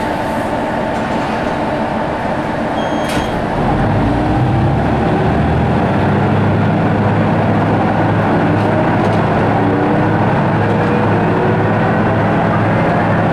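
Ise III-type diesel railcar pulling away, heard from inside the car. After a short click about three seconds in, the engine opens up into a deep drone whose tones rise steadily in pitch as the car accelerates.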